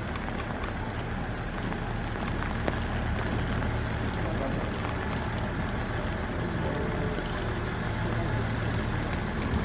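Diesel railcar engine running steadily at a low, even pitch, with a broad hiss of rain over it.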